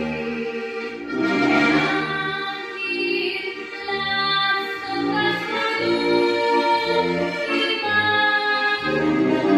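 Two accordions playing a folk tune with a rhythmic bass accompaniment, and a girl singing along from about a second in.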